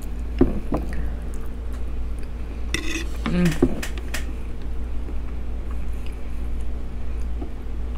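A metal fork clicking and scraping against a wooden cutting board a few times in the first second, as a mouthful of baked potato is scooped and the fork set down. About three and a half seconds in there is a short voiced 'mm', over a steady low electrical hum.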